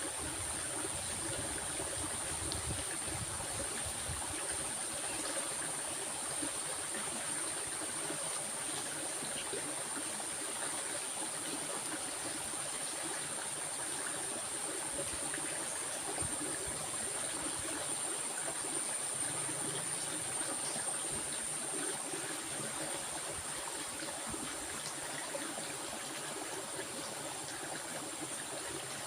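Stream water flowing steadily over stones, with a constant high-pitched hiss or whine above it.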